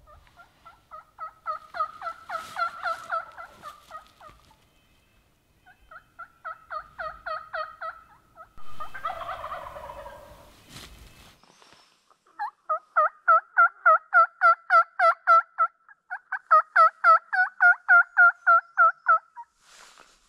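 Hand-operated turkey call imitating a hen: runs of yelps at about four notes a second, each note breaking from a higher to a lower pitch, in four series with the last two loudest. About nine seconds in, a short, rough rattling burst breaks in.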